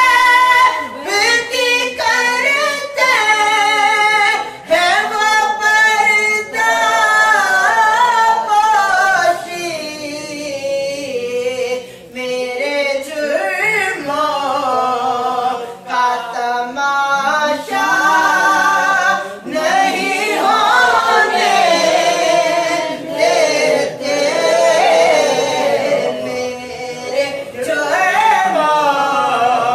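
Naat, an Islamic devotional song, sung without instruments. The voice moves in long, ornamented phrases that glide and bend in pitch, with brief breaths between lines.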